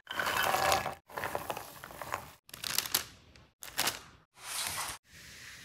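A quick run of separate kitchen sounds, each cut off abruptly after about a second: pecans and chunks of white chocolate crunching and rustling as they are mixed into stiff matcha cookie dough in a glass bowl, then a metal cookie scoop scraping and clicking as it drops dough onto parchment paper.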